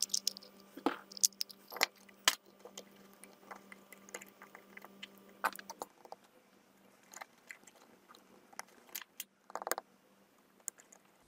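Scattered sharp clicks and crackles of hands and a soldering iron working on an LED bulb: the plastic housing being handled while wires are soldered onto the new LED panel's contacts, sped up fourfold. A faint steady hum sits under roughly the first half.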